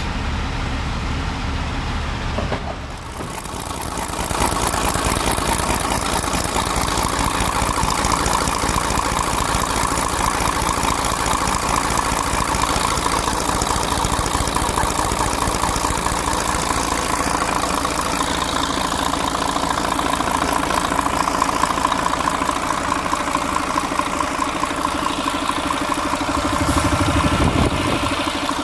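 Mercedes-Benz V6 diesel engine idling steadily, its even firing pulses running on without a break. The sound grows louder about four seconds in and swells briefly near the end.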